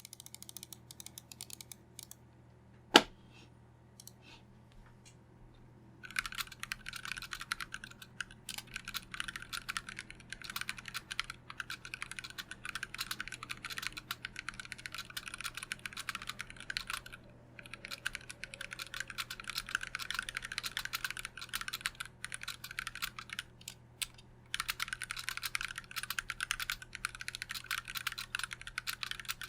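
Typing on a custom TOFU65 mechanical keyboard with stock, unlubed Gateron Black Ink linear switches on a brass plate in an aluminium case. A few scattered key presses and one sharp knock about three seconds in lead into fast, continuous key clacking from about six seconds, with two short breaks.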